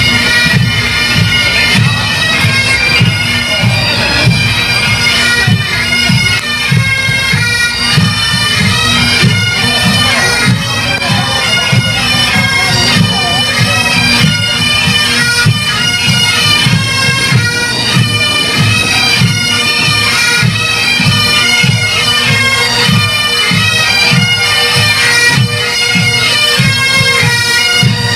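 Massed Highland pipe bands playing on the march: many Great Highland bagpipes sounding together, a steady drone under a moving chanter melody, with a regular beat underneath.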